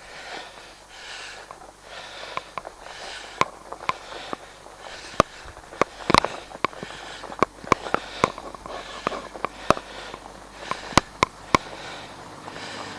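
A rider breathing hard and sniffing while pedalling a fat bike uphill, about one breath a second, with scattered sharp clicks and ticks throughout.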